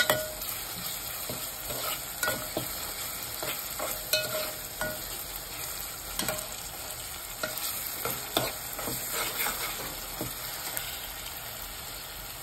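Chopped onion, green chillies and masala paste sizzling as they fry in oil in a metal pot, while a metal spoon stirs them, scraping and knocking against the pot about once a second.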